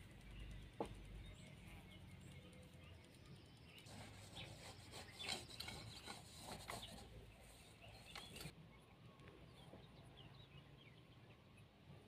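Faint scraping and rubbing of hands working crumbly sablé dough against a clay bowl, for a few seconds in the middle. Faint bird chirps around it.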